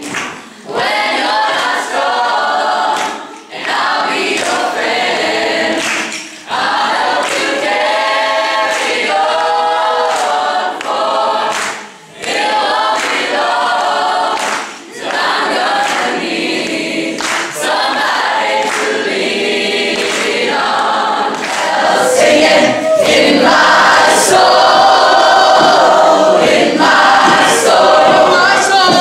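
Choir singing, many voices together, with a few short breaks between phrases; it grows louder near the end.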